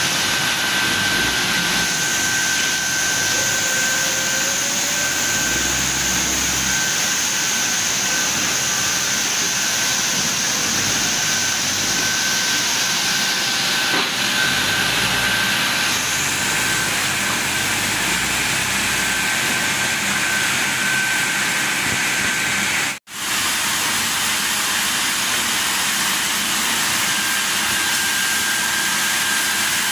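Steady din of running sawmill machinery, with a constant high whine over a hissing noise. It cuts out for an instant about two thirds of the way through.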